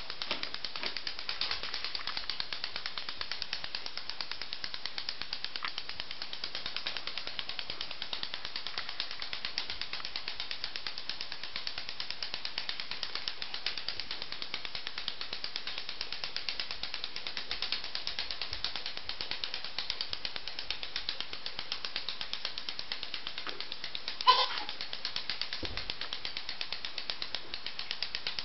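Rapid, steady mechanical clicking and rattling that never lets up. About 24 seconds in there is one short, loud vocal cry, most likely from the child.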